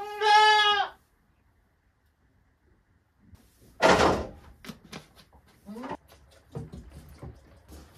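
A Nubian goat kid bleats once, a loud steady call lasting under a second, at the start. About four seconds in comes a loud, rough burst of noise, followed by scattered light knocks and clatters.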